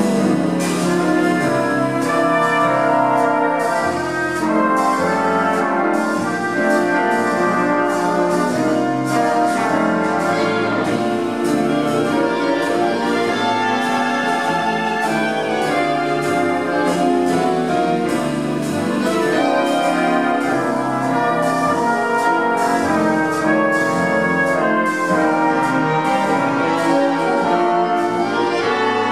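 Big band playing swing music live: trumpets and trombones with the reed section, and drums keeping a steady beat.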